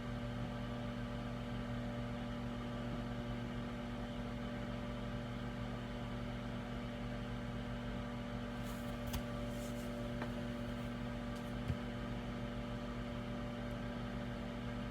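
Microwave oven running with a steady electrical hum, a few faint single clicks in the second half.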